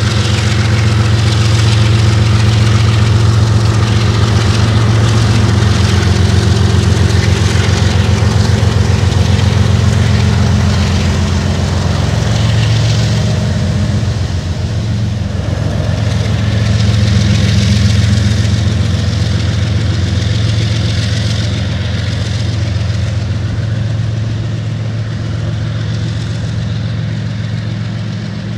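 Diesel-electric freight locomotive running as it passes close by, a loud steady low engine drone with the train's wheel and rail noise over it, swelling and easing as the units go by.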